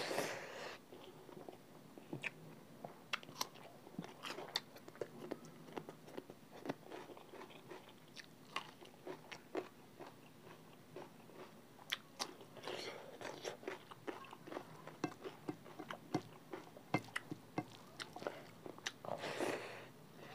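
Close-up eating sounds: a mouthful of rice and chicken-feet gravy chewed with many small wet clicks and smacks, broken by three louder spells of crunching and slurping: at the start, about two-thirds of the way in, and near the end.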